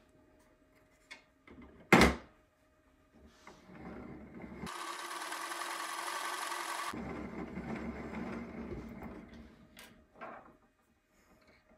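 A sharp knock about two seconds in as a filament spool is set onto a 3D-printed filament spool winder. Then a steady mechanical whir of the winder's plastic gears turning for several seconds, swelling and then fading out.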